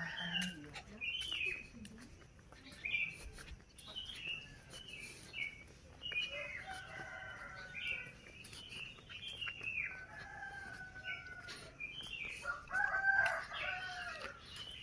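Roosters crowing, several drawn-out crows about halfway through and again near the end, over small birds chirping over and over.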